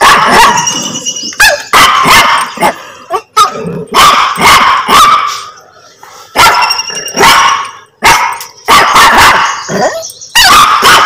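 Small fluffy dog barking loudly and repeatedly, short sharp barks in quick runs of two or three with brief pauses between.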